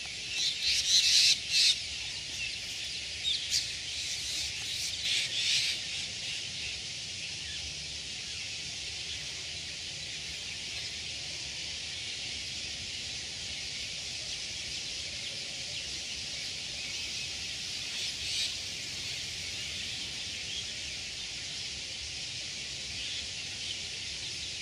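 Many birds calling together in a dense, steady high-pitched chorus. Louder bursts of calls stand out a few times in the first six seconds and once more past the middle.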